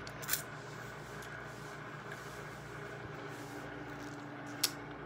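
Microwave oven running with a steady hum, a short time before its cycle ends. Two brief sharp clicks, one shortly after the start and one near the end.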